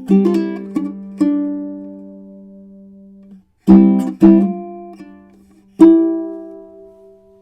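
Tenor ukulele with a spalted tamarind back and sides and a bearclaw spruce top, played solo with no effects. A few plucked notes ring and fade, then after a short pause come two sharp chords close together and a third chord left to ring out.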